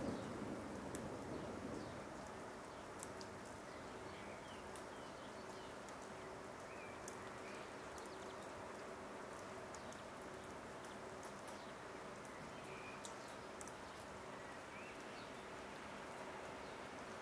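The tail of a thunder rumble fades out in the first second or two, leaving a steady soft hiss of light rain with faint drip ticks and a few short bird chirps.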